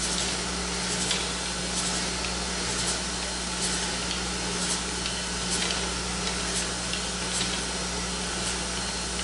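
Surface grinder running: a steady motor hum under the hiss of the grinding wheel as the table carries the clamped block back and forth beneath it. This is a spark-out pass: the wheel is barely cutting, throwing only a few sparks, a sign that the surface is nearly finished flat.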